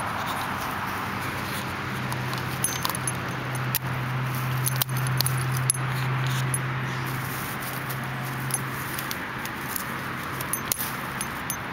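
Steady rushing traffic noise from a nearby interstate highway, with a low hum for several seconds in the middle. Over it come scattered light clicks and crackles as a dog noses and chews at a stick in dry grass.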